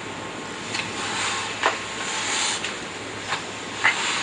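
Handling noise from a cat being weighed on a vet's scale: a handful of sharp clicks and knocks over a steady background hiss, with a short high hiss about two seconds in.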